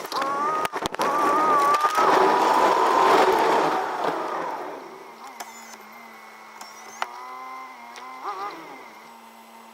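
Starter motor spinning freely under power with a high wavering whine, then winding down and fading out about five seconds in. A quiet steady hum and a few light clicks follow.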